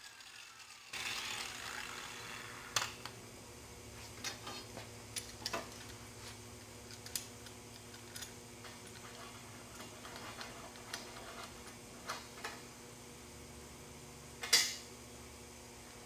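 An angle grinder winding down with a falling whine in the first second or two. Then scattered metallic clicks and clacks as a welding ground clamp is handled and clamped onto a steel frame rail, the loudest a sharp clack near the end, over a low steady hum.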